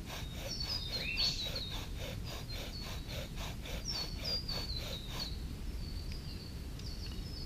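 Bow drill worked at speed: the wooden drill spins back and forth in the hearth board's socket with a rapid, even rhythm of strokes, burning the socket in with smoke rising, then it stops about five seconds in. Birds call over it with repeated high, downward-sliding chirps and a rising whistle.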